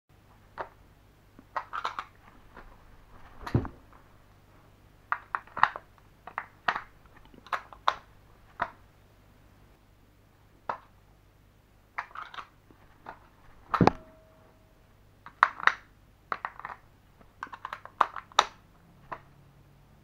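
Irregular series of sharp plastic clicks and knocks from a TV remote being handled and its batteries taken out and put back. Two heavier knocks stand out, the second followed by a brief ringing ping.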